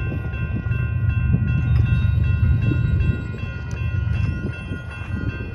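Two electronic railroad crossing bells, an NEG and a WCH type 2, ringing in steady repeated strokes while the crossing gates go up after the train has cleared. A low rumble runs underneath and drops off about three seconds in.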